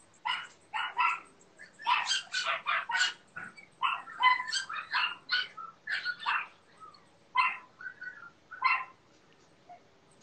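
A dog yapping and whining in a rapid, irregular run of short, high-pitched barks. The barks come thick and fast for the first few seconds, then spread out with short gaps.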